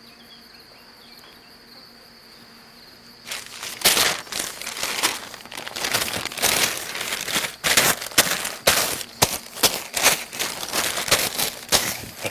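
Faint steady high chirring like crickets, which stops about three seconds in. A large sheet of newspaper then rustles and crinkles loudly and irregularly as it is opened and handled.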